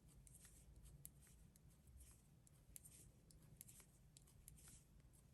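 Very faint, irregular light clicks and taps of knitting needles working yarn, over a low room hum.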